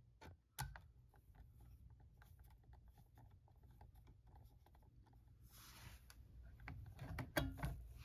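Faint small clicks and scrapes of a flathead screwdriver working the ground screw of an old electrical outlet, backing it off to free the bare copper ground wire. There is a brief rustle, and a few sharper clicks come near the end.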